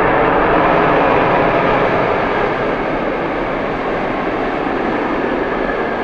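Boeing 777 twin jet engines roaring as the airliner decelerates on the runway after landing, with a steady rushing noise that is loudest about a second in and eases a little toward the end.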